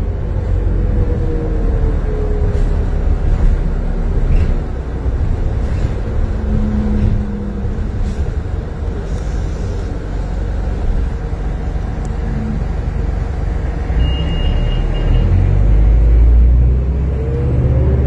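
A 1995 New Flyer D40LF diesel transit bus under way, heard from inside: the Detroit Diesel Series 50 engine running with steady road and tyre noise. The low rumble grows heavier about two-thirds of the way through, and a short high beep sounds at about the same time.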